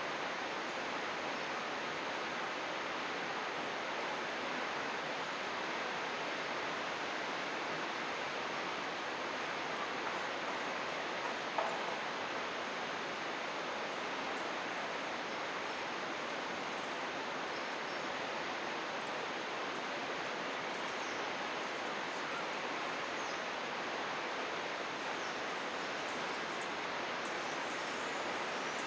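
Mountain river flowing with a steady, even rush of water. Faint high chirps of small birds come through in the second half, and a single soft click sounds about halfway through.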